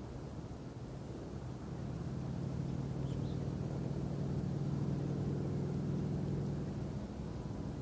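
A motor engine passing by, its steady low hum growing louder over a few seconds and then easing off near the end, with a few faint bird chirps.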